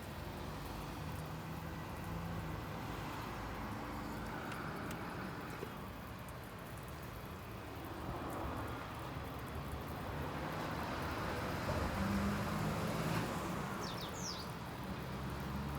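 Outdoor background with a vehicle engine running steadily, growing somewhat louder near the end, and a brief bird chirp near the end.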